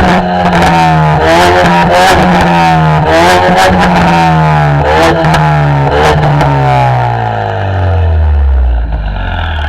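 The exhaust of an EcoBoost Mustang's turbocharged 2.3-litre four-cylinder, with an aftermarket downpipe and axle-back, is revved hard and held high for about five seconds, crackling and popping, then the revs fall away over the last few seconds. It is very loud.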